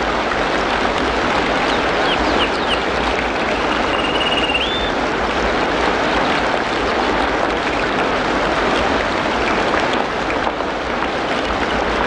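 Steady rain falling, with a bird giving a few short whistled calls in the first couple of seconds and one held whistled note about four seconds in.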